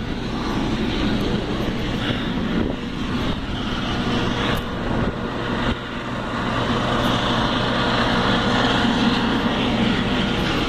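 An engine running steadily, growing louder over the last few seconds.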